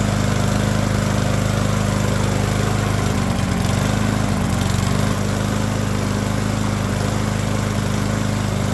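Yard Machines push mower's small single-cylinder engine running steadily with no load, its speed wavering briefly midway. It is being left to run to burn off residual oil and fuel from a crankcase that was overfilled, which the owner blames on a carburettor float not shutting off the fuel.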